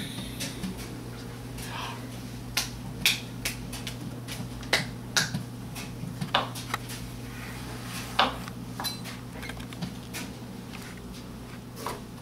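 Baby's hands patting and slapping the top of a wooden TV stand: sharp, irregular taps, about a dozen, over a steady low hum.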